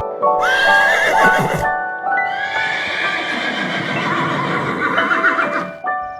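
A horse whinnying twice, first a short call and then a long one that wavers in pitch, over soft background music.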